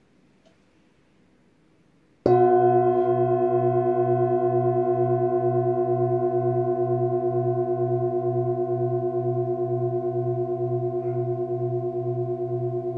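Antique Tibetan singing bowl, held in the hand, struck once with a felt-covered mallet a little over two seconds in, after near silence. It rings with several steady tones over a low hum that pulses evenly, fading only slowly.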